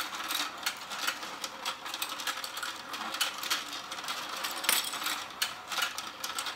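Let's Go Fishing toy game running: its motor turns the plastic fish pond with a steady mechanical clatter and a stream of irregular plastic clicks.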